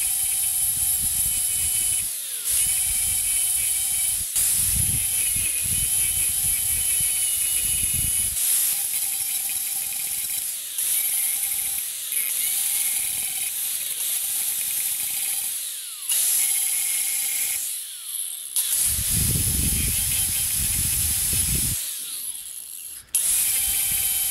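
Angle grinder with a cutoff wheel grinding into a steel railroad spike: a steady high motor whine under a loud hiss of cutting. The whine dips and recovers several times, and the sound breaks off briefly a few times.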